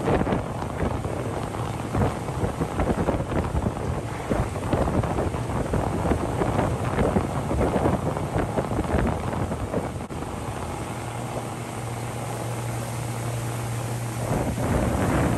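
Wind buffeting the microphone over a boat's 50 hp Yamaha outboard motor running underway. About ten seconds in the gusts drop and the outboard comes through as a steady low hum, then the wind noise rises again near the end.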